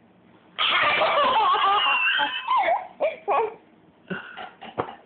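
High-pitched laughter. A long loud laugh with a wavering pitch starts about half a second in, followed by shorter bursts of laughing.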